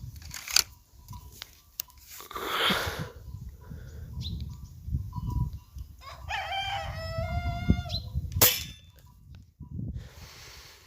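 A rooster crowing once, one long call a little over six seconds in. Two sharp cracks stand out, one about half a second in and a louder one just after the crow.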